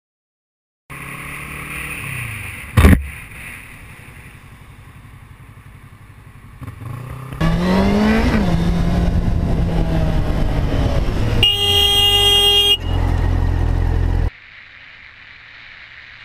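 A motorcycle running on the road, with a sharp bang about three seconds in. Partway through, the motorcycle engine revs up in pitch and settles. A vehicle horn then sounds once, steadily, for just over a second.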